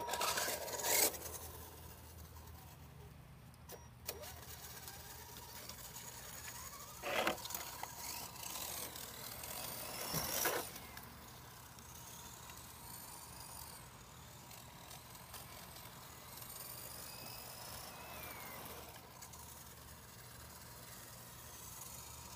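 Radio-controlled model car driving on pavement, its motor whining in short bursts that rise and fall in pitch, with louder swells near the start and about 7 and 10 seconds in.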